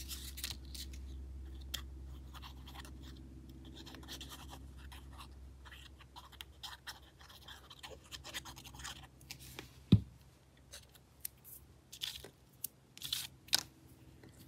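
Paper and card craft pieces being handled on a cutting mat: soft rustles and light taps, with one sharp knock about ten seconds in. A low steady hum fades out over the first half.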